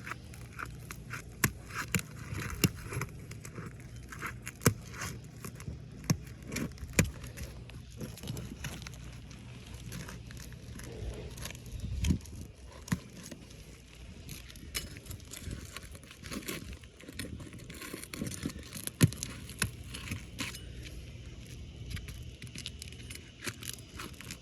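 A metal roofing tool worked under asphalt architectural shingles: irregular sharp clicks, scrapes and crackles as the brittle shingle gives under it.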